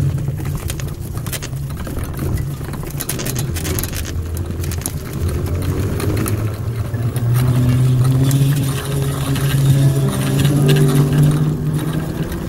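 Solar electric tricycle being ridden: a steady low hum from its drive with rattling and clicking from the frame and plastic windshield over rough ground. The hum gets louder about halfway through.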